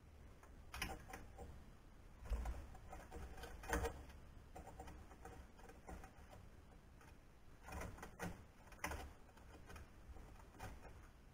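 Light, irregular clicks and knocks of hands handling parts and tools at an OX CNC router's aluminium extrusion frame, coming in small clusters every few seconds.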